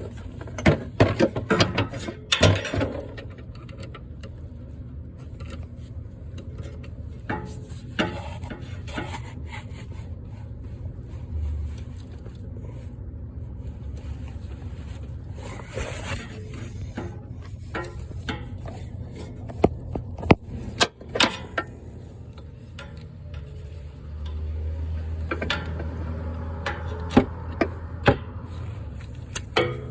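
Hand tools working on the starter mounting under a Jeep: scattered metal clicks, knocks and scraping as a bolt is turned with a ratchet and extensions, over a steady low hum that grows louder near the end.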